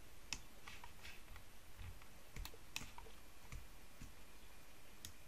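Faint, irregular clicks of a computer mouse and keyboard, about ten in all, spread unevenly through the stretch.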